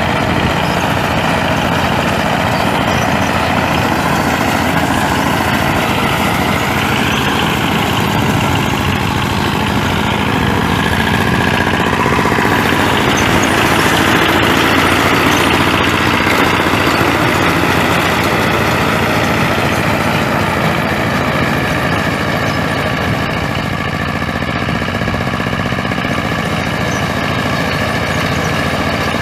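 Engine of a power-tiller-driven mini combine harvester running steadily, with a fast low chugging beat, swelling slightly louder in the middle.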